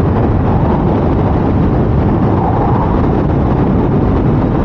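Wind rushing over the microphone, with the KTM Duke 390's single-cylinder engine running underneath as the motorcycle rides at speed and picks up pace gently. The sound is a steady, dense rumble and rush, heaviest in the low range.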